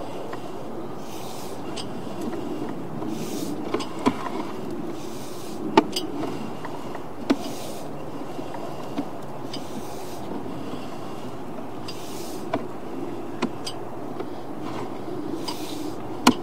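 Steady rubbing noise with sharp clicks every second or two as a sewer inspection camera's push cable is fed into the line.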